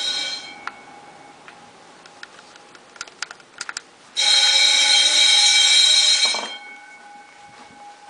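Wheelock electric bell ringing in two bursts: the first cuts off about half a second in, the second starts about four seconds in and rings for about two seconds. A few sharp clicks come just before the second burst.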